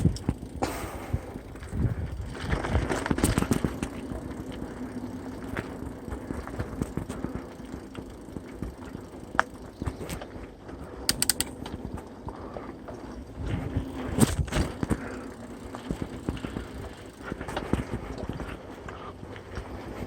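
Mountain bike riding along a dirt trail: steady tyre and rolling noise, with frequent sharp knocks and rattles as the bike goes over bumps.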